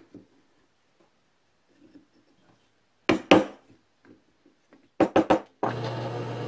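A wooden mallet striking a drill bit held upright in a hole: one sharp knock about three seconds in, then three quick knocks about five seconds in. Just after them a drill press motor starts and runs with a steady hum.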